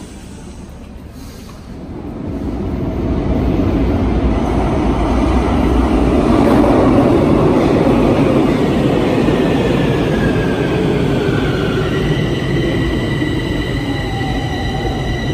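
A metro train entering an underground station. A rumble builds over a few seconds and peaks about halfway through, then gives way to a whine falling a little in pitch and a high, steady squeal as the train slows along the platform.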